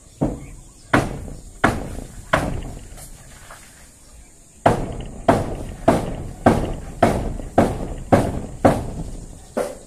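Hammer blows at a steady pace of about one and a half a second: a run of four, a pause of about two seconds, then a run of about nine more.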